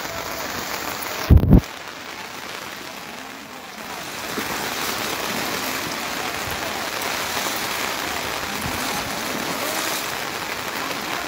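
Heavy rain falls steadily, together with the rush of a flooded river, as an even hiss that grows louder from about four seconds in. A brief low thump comes about one and a half seconds in.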